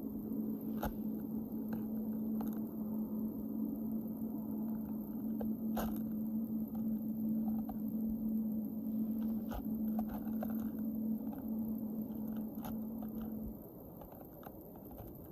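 A steady low hum that stops abruptly near the end, with scattered sharp crunches and clicks over it.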